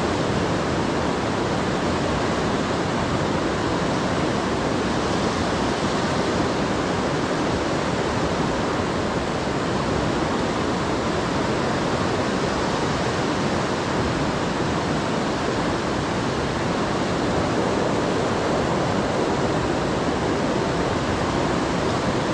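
The fast, silt-laden water of the Seti River rushing through a rock gorge: a steady, unbroken roar of white water.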